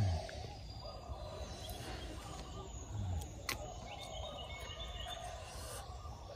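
Steady outdoor forest background noise. A man eating makes brief low 'mm' sounds at the start and around three seconds in, and there is a single sharp click about three and a half seconds in.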